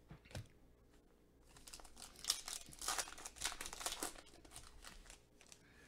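Foil wrapper of a trading-card pack crinkling as it is torn open by hand: a dense run of crackling for about three seconds in the middle, dying away near the end.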